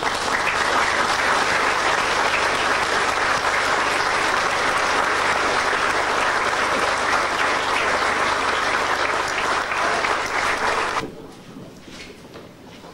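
Audience applauding steadily; the clapping dies away about eleven seconds in.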